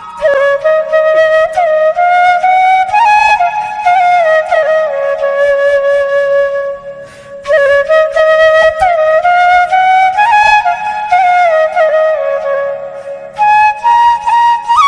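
Background music: a solo flute melody with sliding, ornamented notes, briefly pausing about seven seconds in.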